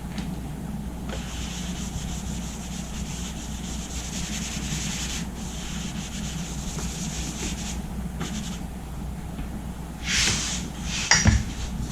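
Electric buffer running, its pad rubbing compound over fresh car paint to cut out scratches: a steady motor hum under a rubbing hiss that breaks off briefly a few times as the pad lifts or shifts. Near the end come a few louder scuffs and a sharp knock.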